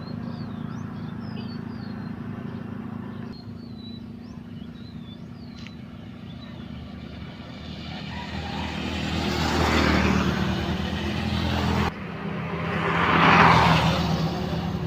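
Small birds chirping over a steady low engine hum, then two vehicles passing by, each swelling up and fading away.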